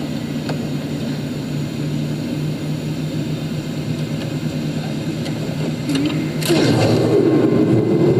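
Jet airliner's engines running with a steady hum. About six and a half seconds in it turns louder and a higher tone joins.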